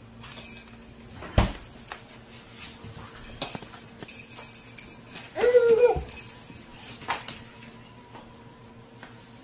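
Scattered knocks and taps on a hardwood floor as a cat bats a string toy beside a crawling baby, the loudest knock about a second and a half in. One short, high cry comes about halfway through.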